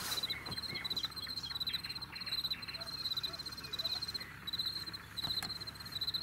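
Crickets chirping in short pulsed trills, two or three a second, with soft handling noises and a single sharp click about five seconds in.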